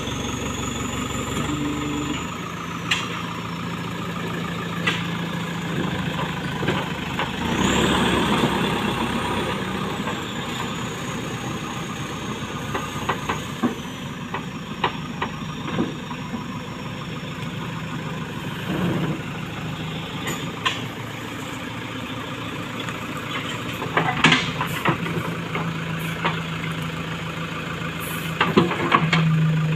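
A JCB backhoe loader's diesel engine running steadily, rising in level about a quarter of the way in with a high whine that climbs and then slowly falls. Scattered sharp metallic knocks and clanks sound over it, bunched together near the end.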